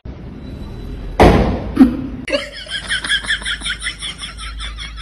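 A loud thump about a second in and a second knock just after, then a person laughing in quick, repeated bursts.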